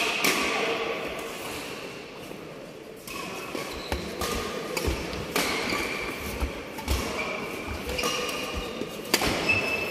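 A doubles badminton rally: sharp racket strikes on the shuttlecock every second or so, shoes squeaking on the court mat, and dull thuds of footfalls.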